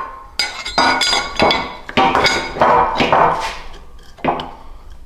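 Steel mounting plate clinking and scraping against the cast-iron hydro-boost unit as it is fitted over the unit's threaded neck: a series of metal-on-metal clinks with short ringing.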